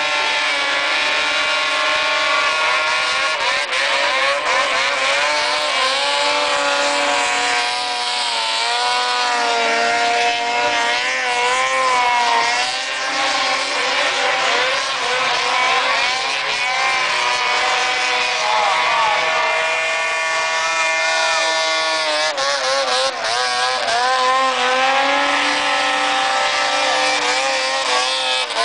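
Several snowmobile engines running at high revs while the sleds skim across open water, their pitch wavering and gliding up and down as they pass.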